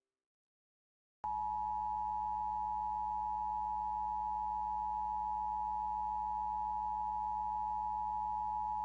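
Emergency Alert System attention signal: the steady two-tone alarm (853 and 960 Hz sounded together), starting a little over a second in after dead silence and holding at a constant pitch and level, with a faint low hum underneath. It announces the emergency warning message that follows.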